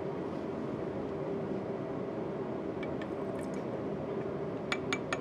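Steady hum of the lab's air handling. Near the end come a few small glass clicks as the rim of a small glass beaker touches an Erlenmeyer flask while solvent is poured from one into the other.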